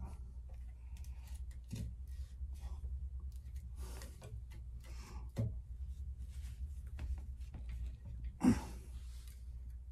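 Small clicks, rustles and scrapes of a stainless steel cable tie being pulled and worked tight around fibreglass exhaust wrap, with one louder scrape near the end. The tie doesn't seem to be tightening up.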